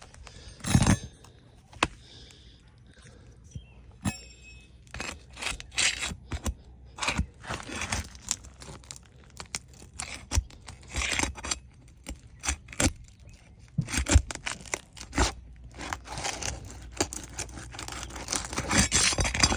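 Old, brittle roof shingles being worked loose by hand: repeated short crackles and scrapes as the stiff shingle tabs are lifted and pried from the roof.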